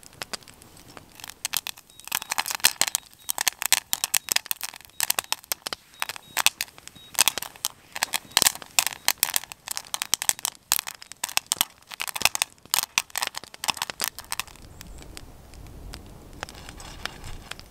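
Popcorn kernels popping in a lidded pan with a mesh top held over a campfire: a dense run of sharp pops starting about a second and a half in, thinning out near the end.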